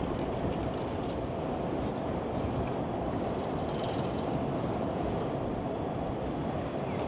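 Steady low rumble of a busy city street, traffic noise mixed with gusty wind on the microphone.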